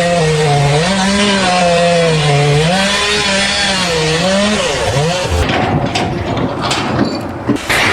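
A motor running under load, its pitch wavering slowly up and down over a loud hiss, stops about five seconds in; rough scraping and clatter follow.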